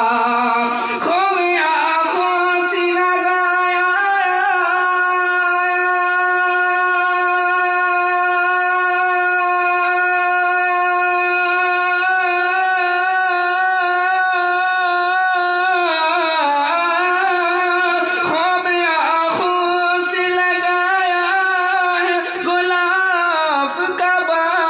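A man singing an Urdu naat, holding one long steady note through the middle, then bending and wavering the pitch in ornamented phrases near the end.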